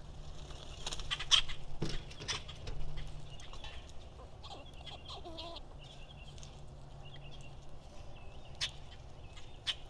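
Nanday conures (black-hooded parakeets) calling harshly, loudest in a cluster of screeches a second or two in, then softer chatter and two sharp calls near the end.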